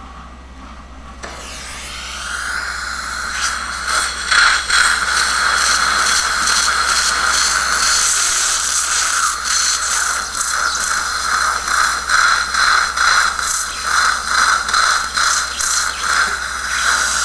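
Dental implant surgical motor and contra-angle handpiece drilling bone with the yellow-ring 3.45 mm implant drill. The motor spins up with a rising whine about a second in, then runs at a steady high whine that swells and dips rhythmically.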